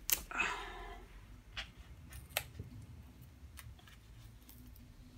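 Scattered light clicks and taps, with a brief rustle about half a second in, from hands handling small objects and packaging.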